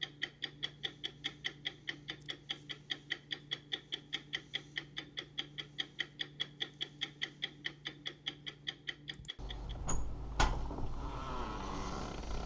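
Rapid, even mechanical ticking, about four ticks a second. About nine seconds in it cuts off abruptly to wind buffeting the microphone, with a couple of knocks.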